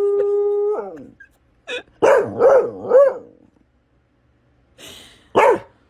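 Dog howling: a long, steady howl that falls off just under a second in, followed by three short wavering howls, and a single short yip or bark near the end.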